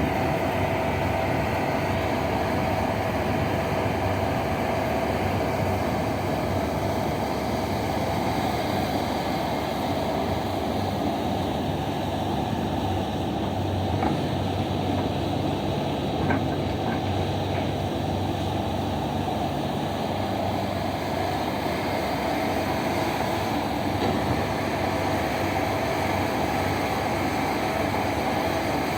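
Heavy diesel mining machinery running steadily, with a couple of brief faint clanks partway through.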